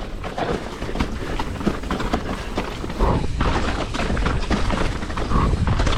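Hardtail mountain bike descending a rough, rocky trail: tyres on dirt and rock under a steady clatter of knocks and rattles from the bike, with a low rumble. It gets louder about halfway through.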